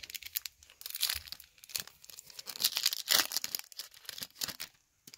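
Foil wrapper of a baseball card pack being torn open and crinkled in the hands, a dense run of crackling rustles.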